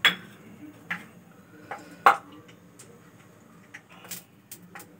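Metal kitchenware clinking and knocking as steel bowls and utensils are handled beside the stove: several separate sharp clinks, the loudest about two seconds in, with lighter ticks after.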